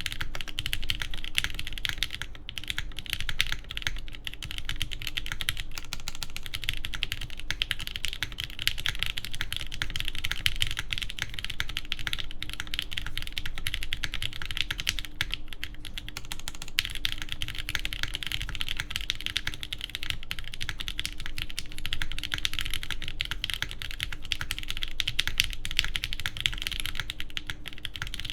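Steady, fast typing on a TGR Jane v2 ME mechanical keyboard: a dense stream of keystroke clacks from lubed JWK Banana Split linear switches with JTK keycaps on a carbon fibre half plate.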